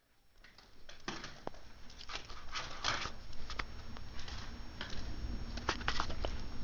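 Irregular soft taps, clicks and rustles of a miniature schnauzer moving about on carpet, over a steady low hum.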